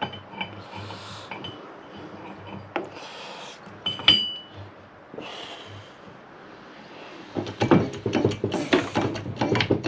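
Metal clinks and taps of tools and parts being handled on a baler, with one sharp ringing clink about four seconds in. From about seven seconds there is a quick, irregular run of knocks and clatters, several a second.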